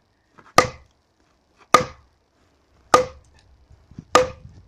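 A sledgehammer striking the back of an axe head stuck in a log, four ringing metal-on-metal blows about a second apart, driving the axe into the wood to split it.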